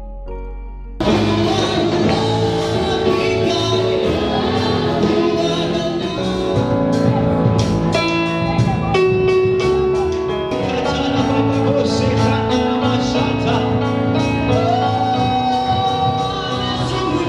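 Gospel worship music: voices singing over a band with regular drum beats. A soft instrumental passage cuts to the louder, fuller song about a second in.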